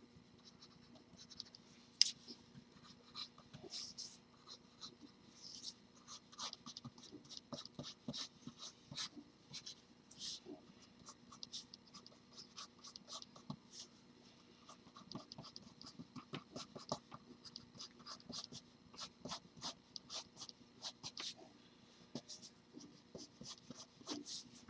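Pencil scratching on drawing paper in short, quick, irregular sketching strokes while laying out a figure's rough outline, with one sharp tap about two seconds in.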